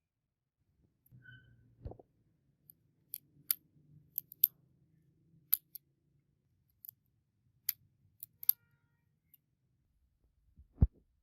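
About a dozen irregular sharp, light clicks, spread over several seconds. A dull low thump comes a little under two seconds in and another near the end, over a faint low hum.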